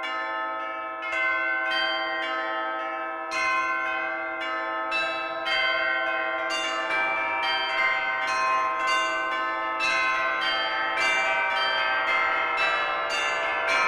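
Church bells pealing: several bells struck one after another, each ringing on into the next, the strikes coming faster about halfway through, roughly two a second.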